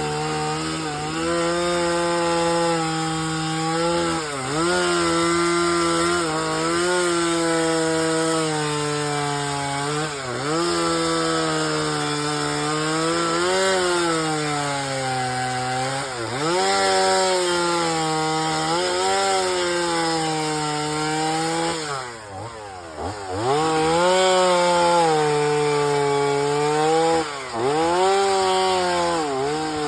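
Chainsaw running hard while carving wood, its engine pitch dipping again and again as the chain bites into the wood and climbing back between cuts. About three-quarters of the way through, the throttle eases off briefly and the engine drops lower before it revs up again.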